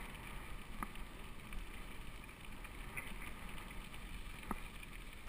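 Steady wind rumble on the microphone of a mountain bike rolling along a gravel track, with tyre noise and a few faint clicks from the bike.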